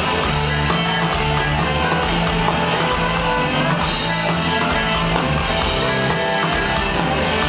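Celtic punk band playing live in an instrumental passage: strummed acoustic guitar, fiddle, accordion, bass guitar and banjo over steady bass notes.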